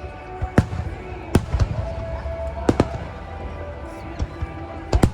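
Aerial fireworks bursting: a series of sharp bangs at uneven intervals over a low rumble, with two bangs in quick succession near the end.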